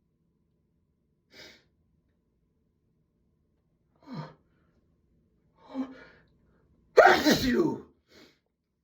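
A person taking three short breaths in the build-up, then one loud sneeze about seven seconds in.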